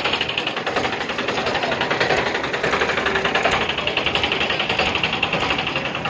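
Tractor's diesel engine running with a rapid, even clatter while it tows a heavy high-tension cable along the ground.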